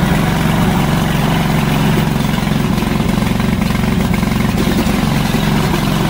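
Gasoline engine of a remote-control crawler mower running steadily at a constant speed, just after being started.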